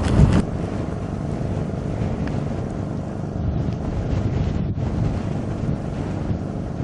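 Strong gusting wind buffeting the microphone, a steady low rumble of wind noise. A louder gust eases off about half a second in.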